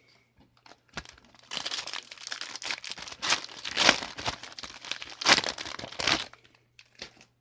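Crinkling and tearing of a trading-card booster pack wrapper being handled and opened: a dense crackle that starts about a second in and stops shortly before the end, loudest in the middle.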